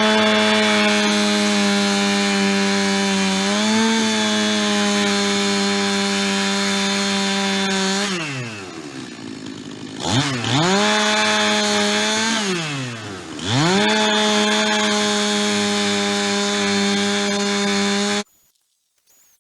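Chainsaw on a chainsaw mill ripping a white pine log at full throttle, the engine falling back toward idle twice in the middle and revving back up each time, then stopping abruptly near the end.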